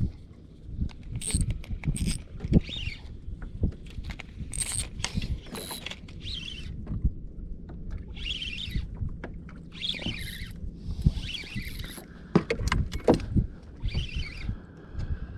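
Water slapping and splashing against the hull of a small fishing boat at sea, with irregular knocks and bumps on the boat.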